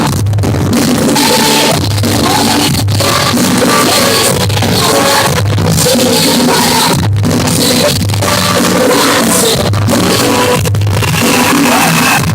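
Pop-rock song with drum kit and singing, a steady beat throughout, played loud.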